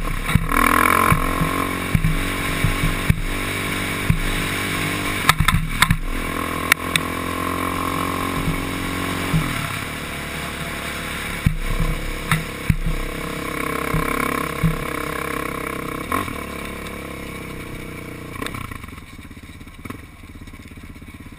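ATV engine running under throttle on a rough dirt trail, with clattering and knocks as the quad hits bumps. Near the end the engine eases off and quietens as the quad slows.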